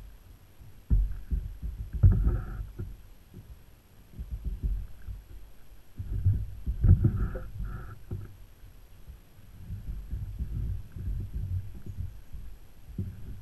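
Uneven low rumbling and thumping from a kayak under way, picked up by a camera mounted on the kayak. There are louder bumps about two seconds in and again around seven seconds.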